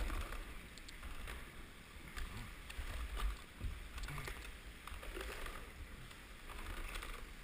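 Kayak paddle strokes dipping and splashing in shallow water, with irregular low thumps and light knocks, inside a concrete culvert.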